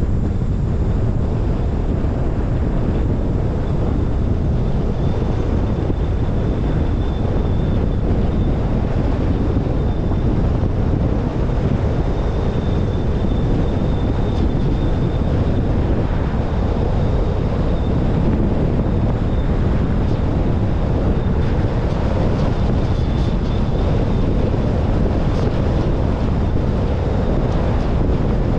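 Steady wind buffeting the microphone of a roof-mounted GoPro Hero10 on a moving car: a dense, even low rumble.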